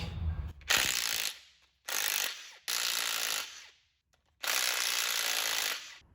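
A power ratchet running in four short bursts, spinning fasteners off the small-block Chevy V8 to get at the camshaft.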